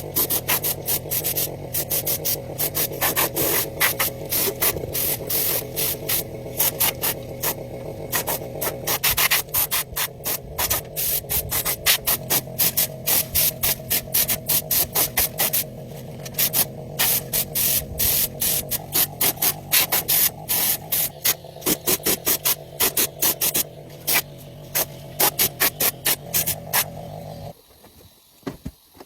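Rapid abrasive rubbing strokes, several a second, over a steady low hum. The hum cuts off shortly before the end and the strokes turn faint.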